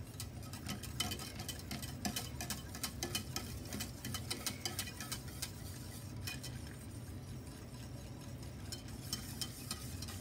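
Wire whisk stirring brown-sugar and agar liquid in a stainless steel saucepan, its wires clicking and ticking against the metal in quick irregular strokes, fewer for a couple of seconds past the middle.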